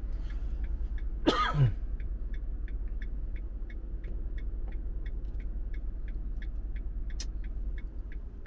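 Vehicle indicator relay ticking evenly, about three clicks a second, over the low rumble of the stopped camper van. About a second and a half in, a person makes a short vocal noise that falls in pitch, like a throat-clear.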